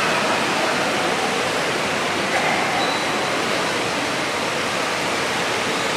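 Heavy rain, a steady even hiss.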